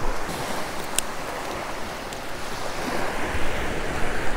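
Small surf waves washing onto a sandy beach, with wind buffeting the microphone; a small click about a second in.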